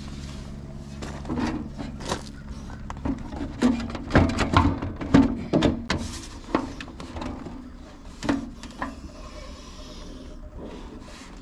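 Sheet-metal engine side cowling of a Kubota BX compact tractor being handled and worked against the frame: a run of irregular clunks, knocks and scrapes, over a low steady hum.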